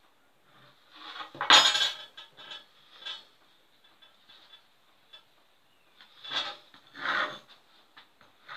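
Large steel drawing compass being handled and repositioned on a plywood board: metal clinks and knocks as its legs are adjusted and set down, the loudest about a second and a half in, a few more near the end.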